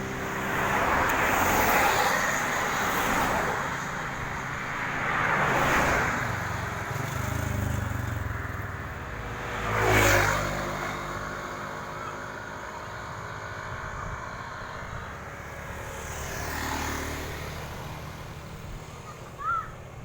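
Road traffic passing close by: several vehicles go past one after another, their engine and tyre noise swelling and fading, the loudest and quickest pass about halfway through. A brief high chirp near the end.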